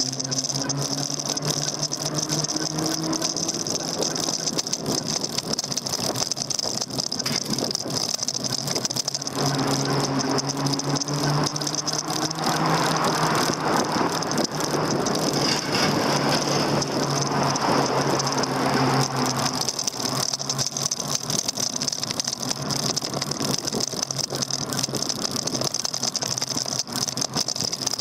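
Daymak Max electric bike riding along, picked up by a handlebar-mounted camera: the motor hums and whines, the bike and mounts rattle, and road and wind noise run under it. The hum comes and goes, and the rushing noise grows louder around the middle.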